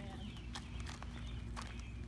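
Footsteps on asphalt: flip-flops slapping against heels and pavement at a walking pace, with uneven sharp clicks over a low steady outdoor rumble.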